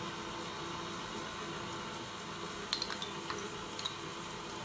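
KitchenAid Artisan stand mixer running steadily with a low hum, its beater turning through dry bath bomb powders, with a few light clicks about three seconds in.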